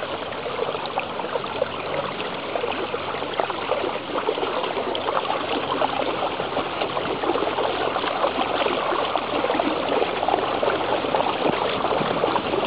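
Water churning and trickling steadily with small splashes, as a pedal boat's paddle wheels push it along.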